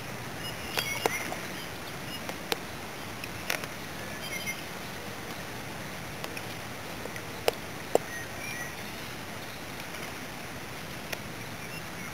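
Steady rush of flowing creek water, with a few sharp clicks, the loudest two close together past the middle, and faint short bird chirps.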